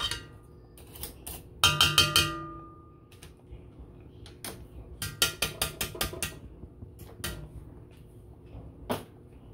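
Metal wire mixer beaters clinking against a stainless steel mixing bowl and clicking as they are worked loose from the mixer: a quick cluster of ringing clinks about two seconds in, another run of clicks around five to six seconds, then a couple of single clicks.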